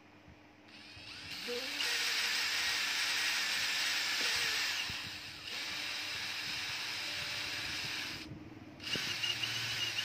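Handheld power drill boring a hole through the clear plastic top of a small wooden box. It winds up over about a second, runs steadily for several seconds, stops briefly near the end, then runs again for a moment.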